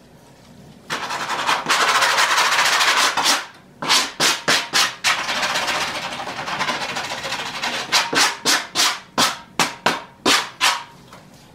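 Hand brush scrubbing crumbling old foam off a 1986 Chevy Caprice headliner board: long stretches of continuous scrubbing broken by runs of quick separate strokes, about two or three a second near the end.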